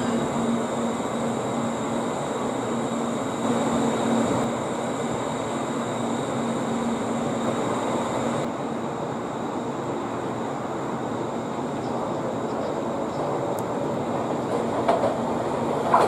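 Electric train running on the rails with a steady rumble. A low hum fades out about halfway through, and a few clicks come near the end.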